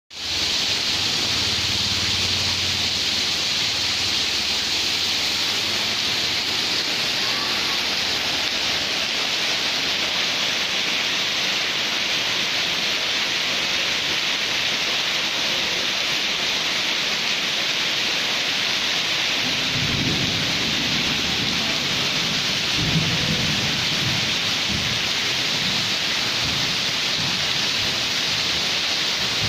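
Heavy tropical rain pouring onto a street and stone paving, a dense steady hiss of splashing drops. A low rumble comes near the start and again about two-thirds of the way through.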